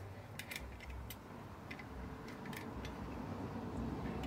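A few light clicks and taps from an LED headlight unit and its trim ring being handled and turned over, mostly in the first couple of seconds, over a low steady rumble.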